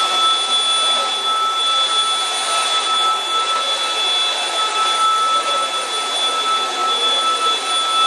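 Cordless stick vacuum cleaner running on carpet: a steady rush of air under a high motor whine.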